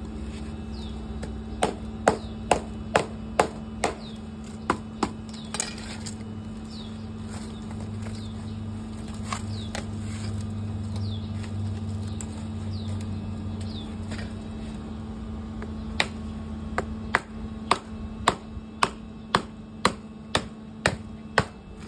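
Machete blade chopping into the fibrous leaf sheaths of a coconut palm heart, cutting away the hard outer leaves to reach the soft heart. Sharp strikes come in a short run about two seconds in, then a quicker run of about two a second in the last six seconds.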